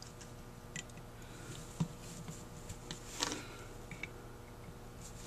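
Small screwdriver tightening the screws that hold the brass throttle valves to the throttle shaft of a Rochester 4GC carburetor, giving a few faint metal-on-metal clicks and scrapes, the clearest about three seconds in.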